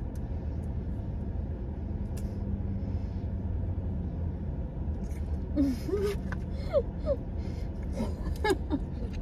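Steady low hum of a car idling, heard from inside the cabin. From about five and a half seconds in come short vocal sounds that slide up and down in pitch, mixed with a few small clicks.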